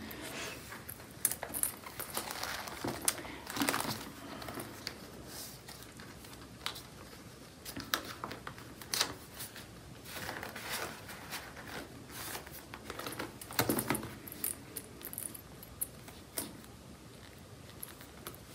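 Paper banknotes rustling as they are riffled and tucked into a denim-covered cash wallet, with light clicks from the wallet's strap and clasp. The sounds come as scattered soft rustles and clicks.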